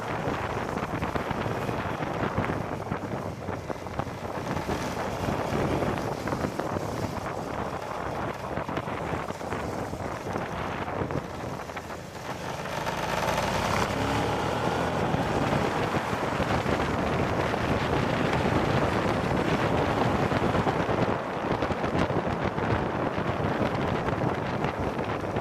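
Wind rushing over the microphone of a camera mounted on a moving Suzuki V-Strom 650 motorcycle, with the bike's V-twin engine running underneath. The rush is steady, dips briefly near the middle and then gets louder for the rest of the ride.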